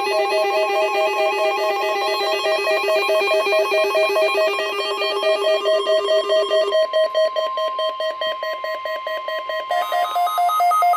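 A rapidly pulsing, musical tone pattern that steps to new pitches a few times, with a steady higher tone joining about halfway through.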